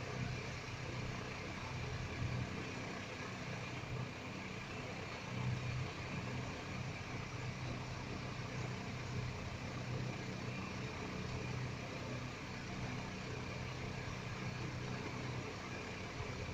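Steady background hum and hiss with a low rumble, unchanging throughout.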